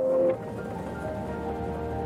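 Calm ambient background music of sustained, layered pitched tones. A louder swell falls away about a third of a second in, and softer held notes carry on.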